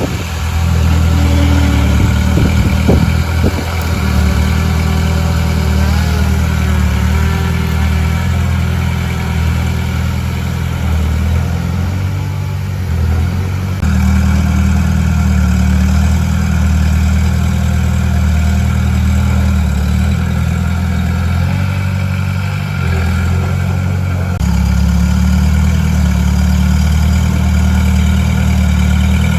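Heavy machine's diesel engine running steadily, with its note shifting as the load or throttle changes about halfway through and again near the end. A few short knocks come about two to three seconds in.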